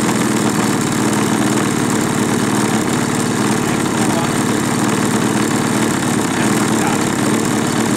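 Converted GL5200M 52 cc two-stroke chainsaw engine on a large model aircraft, running steadily on the ground and spinning its propeller.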